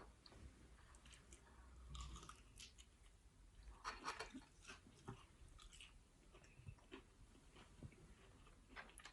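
Faint chewing and crunching of fried food, a scatter of small crackles and bites.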